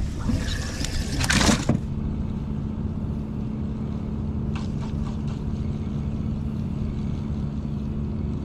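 Hard clatter and knocking for the first couple of seconds as a caught striper is put into a boat's livewell compartment. After that comes a steady low motor hum, with a few faint clicks about five seconds in.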